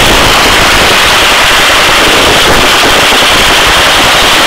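Hovering helicopter: a loud, steady wash of rotor and engine noise with a rapid, dense chopping texture.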